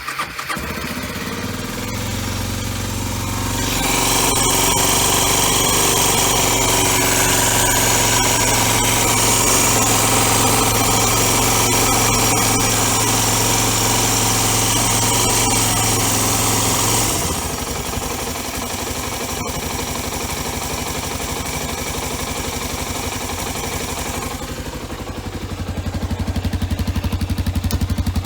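Suzuki DR250R's single-cylinder four-stroke engine running on its repaired Mikuni TM28 carburettor: idling, then held at higher revs for about thirteen seconds, dropping back to idle, and rising again near the end.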